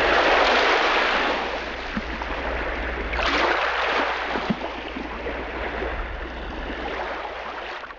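Ocean surf: waves washing in, swelling once at the start and again about three seconds in, easing off and then cutting off abruptly.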